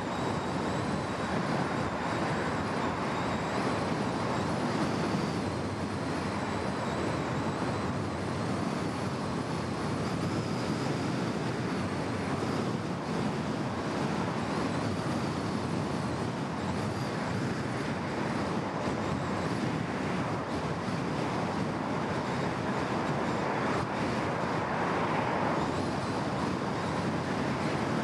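Steady tyre and road noise of a car driving at speed on a multi-lane road, with other traffic passing and a brief swell near the end.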